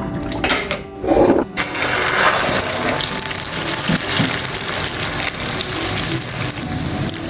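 Martabak mie mixture of noodles and egg frying in hot oil, a steady loud sizzle that sets in about a second and a half in, after a brief louder burst.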